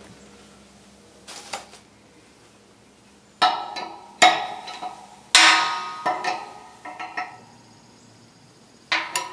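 A metal wrench clanking against the concrete floor and brass pipe fittings while a hex nipple is screwed into an elbow: a run of sharp metallic clanks with brief ringing, about eight in all, the loudest between three and six seconds in.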